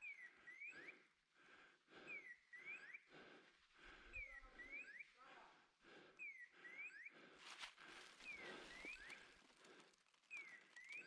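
Hunting dog's electronic beeper collar chirping about every two seconds, each time a pair of falling-then-rising chirps. The fast repeat is typical of point mode, when the English setter stands still on a bird. Faint rustling steps through brush underneath.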